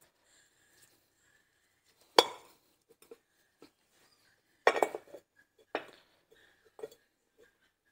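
Metal clinks of a Ford Transit rear wheel hub being located onto a new brake disc: a loud knock about two seconds in, then three more over the next five seconds, each with a short ring.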